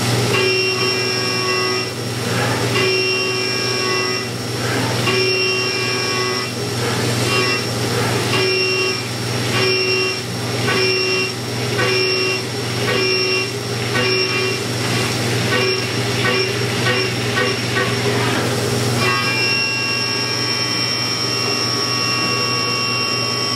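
CNC vertical mill's end mill cutting a metal deck-cleat blank under flood coolant. Its high-pitched whine of several steady tones cuts in and out about once a second as the tool enters and leaves the cut on an iMachining adaptive toolpath, then holds steady near the end. Underneath run the hiss of the coolant spray and a low machine hum.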